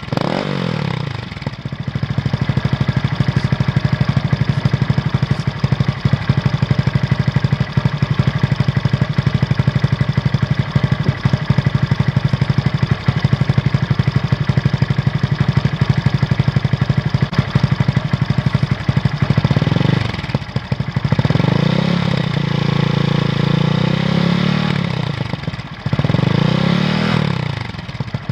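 Honda MSX 125's single-cylinder four-stroke engine running through an Arrow X-Kone aftermarket exhaust. It settles from a rev into a steady idle, then near the end is revved several times, once held at raised revs for a few seconds, and each time drops back toward idle.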